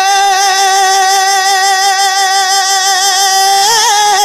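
A man singing a naat, a devotional song in praise of the Prophet. He holds one long note with a slight waver, then breaks into a quick vocal turn near the end.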